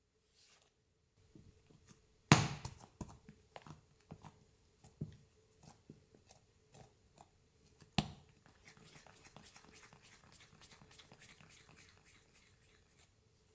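Bread dough worked by hand on a silicone mat: soft sticky slaps and small clicks as a piece is pinched and folded closed, with a sharp knock about two seconds in and another midway. Then a steady rubbing as the dough is rolled into a smooth ball under the palm.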